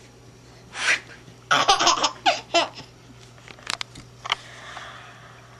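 Baby laughing in short, choppy bursts: one just under a second in, then a quick run of bursts between about one and a half and three seconds in.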